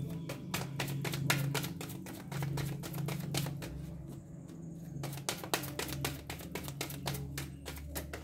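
A tarot deck being shuffled by hand, an overhand shuffle giving a quick run of crisp card clicks and flicks, thinning briefly around the middle.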